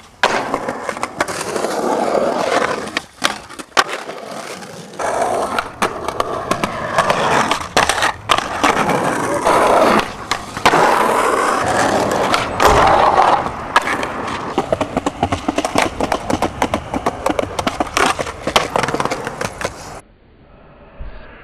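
Skateboard wheels rolling on concrete and asphalt, broken again and again by sharp clacks of tail pops, landings and the board hitting the ground. The sound cuts off shortly before the end.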